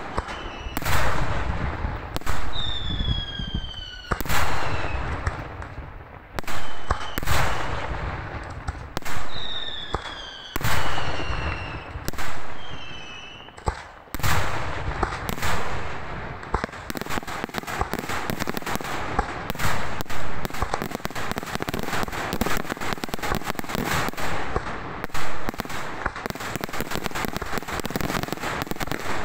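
Daytime aerial fireworks: loud shell bursts, each fading away, with falling whistles between them in the first half. From about halfway, a dense rapid crackle of many small bangs.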